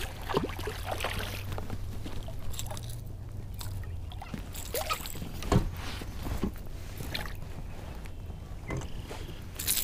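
A hooked largemouth bass splashing and thrashing in shallow water at the surface as it is reeled in to the bank, in irregular short splashes.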